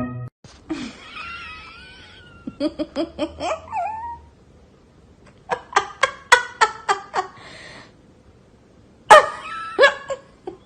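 People laughing in several short bouts of quick repeated 'ha' sounds, with a high wavering cry about a second in.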